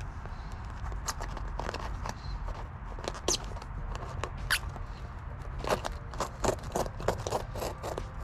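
A knife trimming a sheet of sound-deadening mat: scattered short scrapes and clicks as the blade cuts and the sheet is handled, coming more often and louder in the second half.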